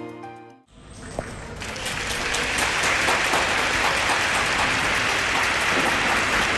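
Program music ends within the first second, then applause starts and builds over about a second into steady clapping.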